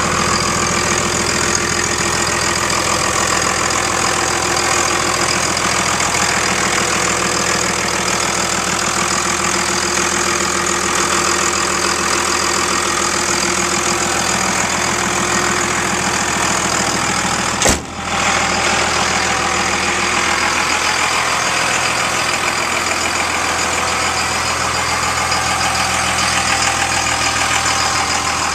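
Pickup truck engine idling steadily, with one sharp click about eighteen seconds in.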